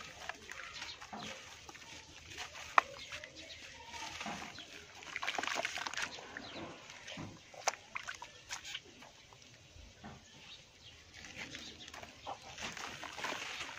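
Dry clay crumbling in the hands and falling as powder and lumps into a tub of water, then wet mud being squished and kneaded. Scattered crackles and small splashes.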